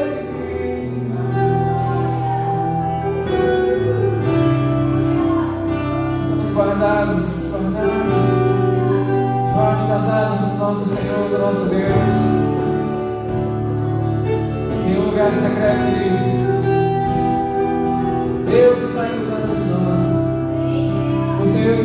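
Live worship band playing a gospel song: a man sings lead into a microphone over electric guitar, bass and keyboard, with held bass notes underneath.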